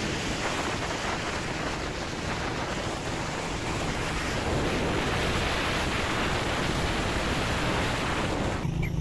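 Steady rush of wind buffeting the microphone, with road noise, from a vehicle moving along a road. Near the end the rush drops away abruptly, leaving a low steady hum.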